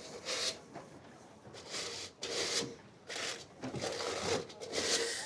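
Shoe soles scraping and crunching in a series of irregular strokes, several in a row of uneven length.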